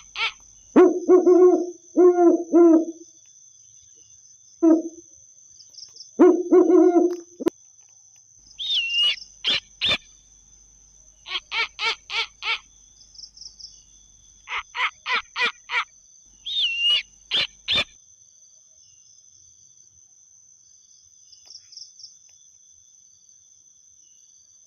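Owl calling: low hoots in quick groups during the first seven seconds, then several runs of fast, high-pitched rasping notes up to about 18 seconds in. A steady high-pitched tone runs underneath.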